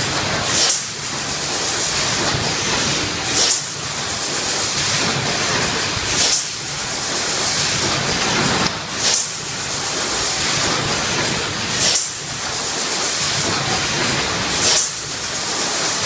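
Keenpro EM08S1 eight-cavity PET stretch blow molding machine running, with a short, sharp hiss of compressed air venting about every three seconds, once per blow cycle, six times over a steady machine noise.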